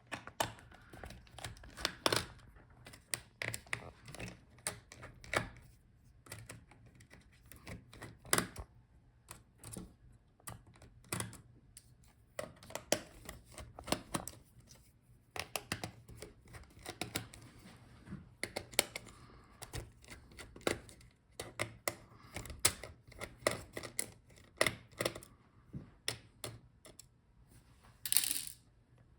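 Irregular small clicks, taps and light knocks of a screwdriver and small plastic and metal parts being handled while a plastic bracket is worked out of an opened laptop. A brief scraping rustle comes just before the end.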